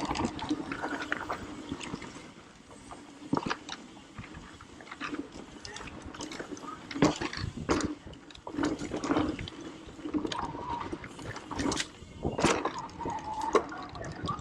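Irregular clicks and knocks, a dozen or so scattered through, over a low background with faint distant voices.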